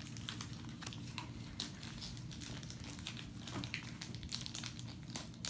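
Foil wrapper of a Pokémon Burning Shadows booster pack crinkling as it is opened and handled by hand: an irregular run of short, sharp crackles.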